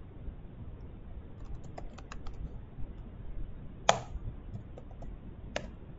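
Computer keyboard typing: scattered key clicks in short spurts, with a louder key press about four seconds in and another near the end.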